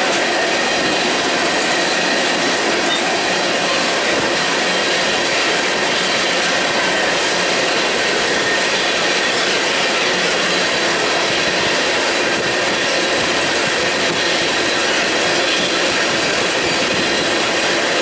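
Freight train of empty oil tank cars rolling past at steady speed: a continuous rolling rumble and rattle of wheels on rail, with faint clicks now and then.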